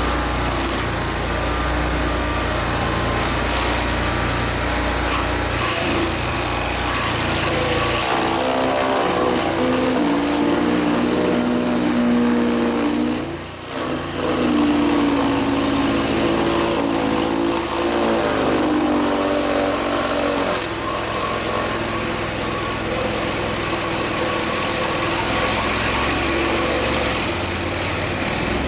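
Engine running steadily under load, its pitch rising and falling between about 8 and 20 seconds in, with a brief dip near 13 seconds.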